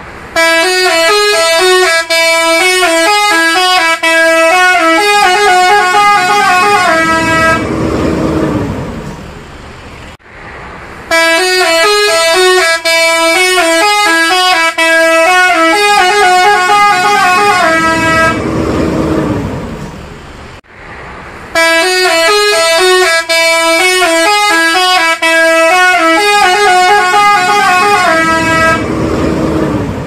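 Multi-tone telolet air horn on an Agra Mas Mercedes-Benz OH 1526 bus playing a rapid tune three times, each run about seven seconds long. After each run comes the bus's engine noise as it pulls away.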